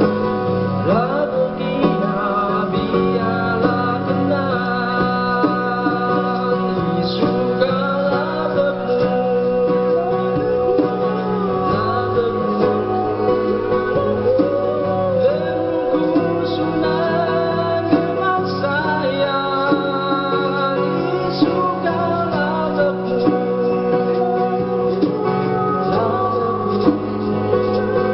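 Music: a song with acoustic guitar accompaniment and a gliding melody line carried over it.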